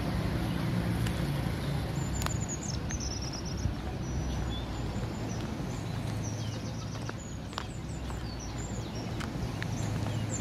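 Outdoor street ambience: small birds chirping in short high trills over a steady low hum, with a few faint clicks.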